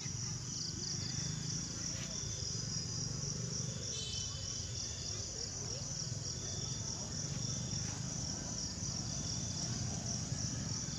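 Insects trilling in a steady high-pitched chorus of fast, even pulses, over a low steady rumble.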